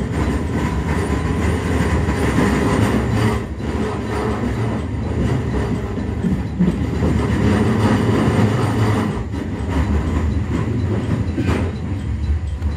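Electric commuter train heard from inside the passenger car while running: a steady low rumble of wheels on rail, with a few sharp clicks.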